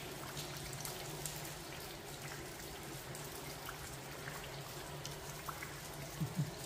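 Water dripping and trickling inside a wet stone railway tunnel: many scattered drips over a steady hiss of running water, with a faint low hum underneath and a couple of brief low sounds near the end.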